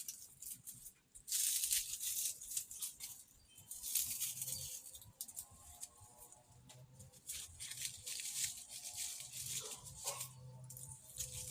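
Bursts of dry rustling and scraping as potting soil and plants are handled during repotting, with faint music underneath from about four seconds in.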